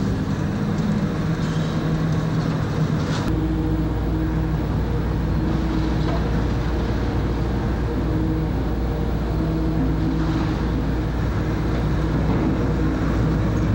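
Diesel engine of a tracked hydraulic excavator running steadily on a demolition site, with a deeper low rumble coming in about three seconds in.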